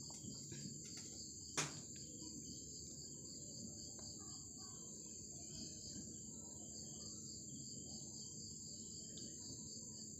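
Insects, likely crickets, chirping steadily at a high pitch, with a rapid pulsing trill, over a faint low background noise. A single sharp click about one and a half seconds in.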